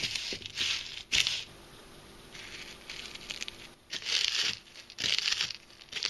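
Fingers stirring and pressing dry herb panko breadcrumbs in a foam tray, working them onto a freshwater prawn's tail: dry, crunchy rustling in several short bouts with quiet gaps between.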